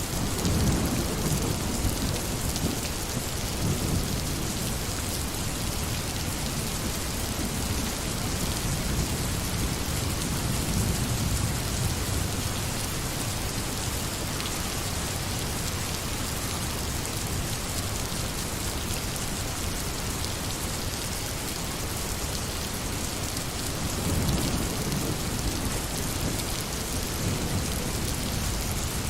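Steady heavy rain with low rolls of thunder: one at the very start, another about a third of the way in, and another near the end.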